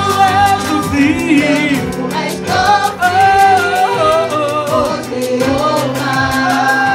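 Live gospel praise music: a lead singer and backing vocalists singing into microphones over band accompaniment with a steady beat.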